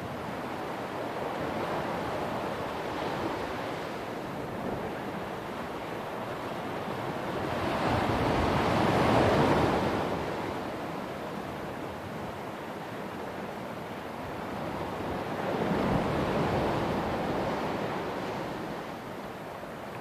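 Sea waves breaking and washing up a beach, in slow surges that rise and fall, the biggest about halfway through and another near the end.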